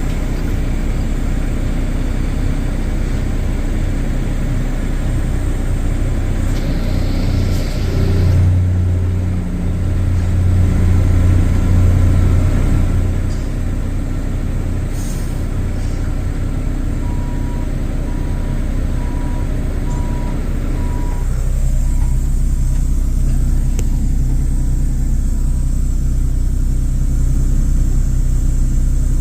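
Heavy diesel engines of trucks and construction machines running steadily, swelling louder for a few seconds near the middle, just after a short hiss. A faint run of short beeps comes later.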